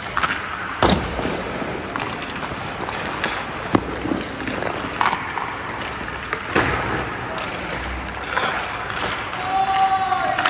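Ice hockey practice on a rink: several sharp knocks of puck, stick and goalie pads against the ice, with skates scraping between them, over steady background noise.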